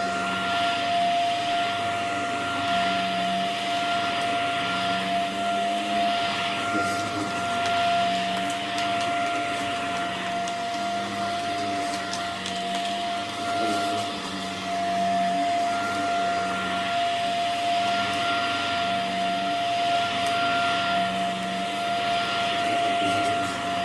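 Hoover vacuum cleaner running on a rug: a steady high motor whine over a rushing hiss that swells and fades in a slow rhythm as it is pushed back and forth.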